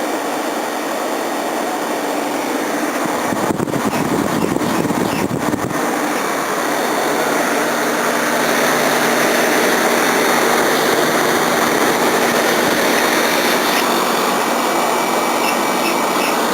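Small Westinghouse air conditioner running steadily, its fan blowing and compressor humming. About three seconds in, a low rumble joins it for a couple of seconds.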